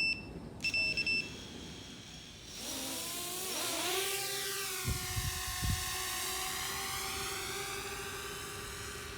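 A few short two-tone electronic beeps, then a 7-inch FPV quadcopter's Brotherhobby Avenger 2507 brushless motors spin up with a whine that glides in pitch before settling into a steady hum. Two low thumps come through about halfway.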